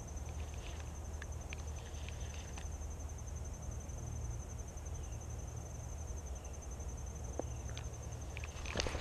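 An insect trilling steadily in the background, a high, rapidly pulsed tone, with a few sharp clicks near the end.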